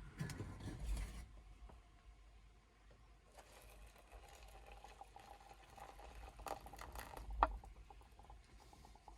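Small handling noises and knocks of cooking gear in a small enclosed space, with a sharp click about seven seconds in.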